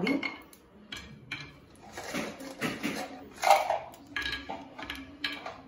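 Cashew nuts dropped one at a time into a nonstick frying pan of ghee, making a scattered series of light taps and clicks.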